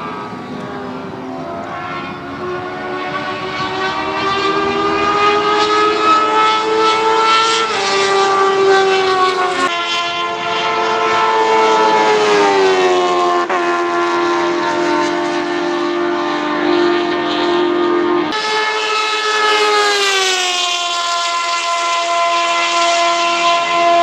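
Single-seater formula race car engine running hard at high revs, its pitch climbing and then dropping in steps at gear changes. The engine note changes suddenly about eighteen seconds in.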